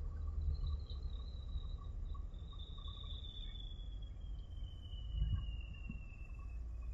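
Waterfront ambience: a steady low rumble with a thin, high whine that slowly falls in pitch, and a brief swell of rumble about five seconds in.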